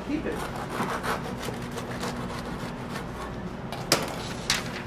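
Scratchy rubbing and scraping as a crusty schiacciata sandwich is handled and worked on a wooden cutting board, in quick irregular strokes. A sharp knock comes just before four seconds in, and a second one about half a second later.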